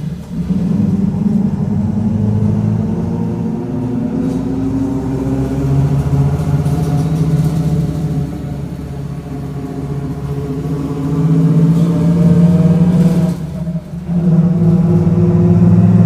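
Mercedes-Benz OF-1722M bus under way: the drivetrain runs with the differential growling, its pitch rising and falling with road speed. The sound drops off briefly near the end, then picks up again.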